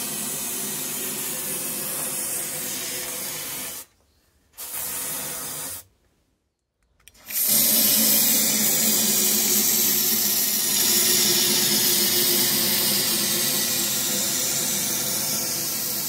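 Aerosol can of cavity wax spraying through a thin extension tube into a steel box section: a steady hiss in three sprays, broken by a short pause about four seconds in and a longer one around six seconds, the last spray louder.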